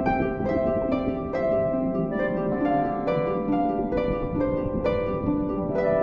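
Background music: a light melody of plucked string notes, each note starting sharply and fading, several notes a second.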